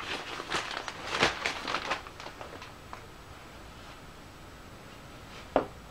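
Handling noise as a motorcycle radiator is worked into place against the frame: a quick run of rustles and light knocks over the first two seconds, then one sharp knock near the end.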